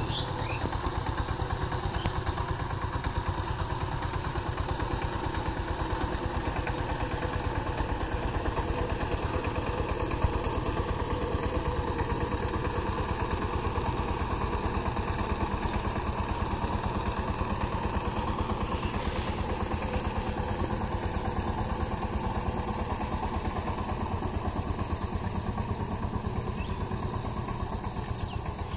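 Single-cylinder diesel engine of a two-wheel power tiller running steadily with a fast, even beat as the machine drives along.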